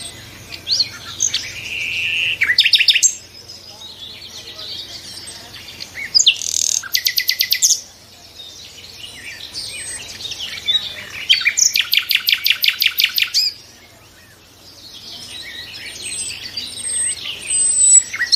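Nightingale singing in repeated phrases: soft, varied high notes build into loud, fast runs of repeated notes, about ten a second, with short pauses between phrases.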